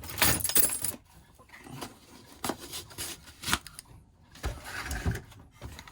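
Rummaging through a box of old tools and padlocks: a burst of rustling, then scattered clicks and knocks as items are picked up and put down.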